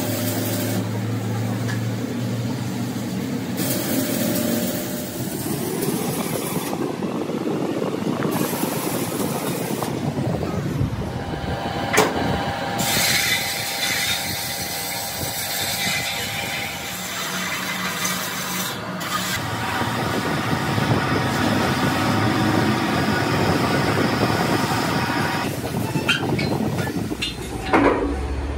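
Metal repair work on a steel truck wheel mounted on a lathe: arc welding crackling at the start, then the wheel turning on the lathe while an abrasive is held against it, with a sharp metallic knock about twelve seconds in and a few more near the end.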